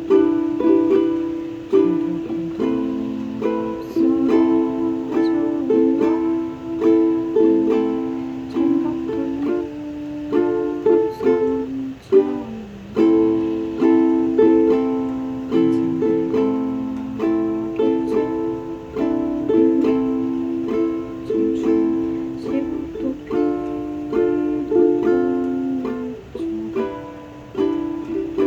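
A solo ukulele strumming chords in a steady accompaniment pattern, with a short break partway through.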